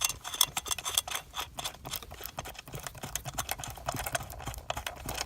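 Ratchet wrench with a 12mm socket clicking in quick, irregular runs as a bolt holding the airbag module is loosened.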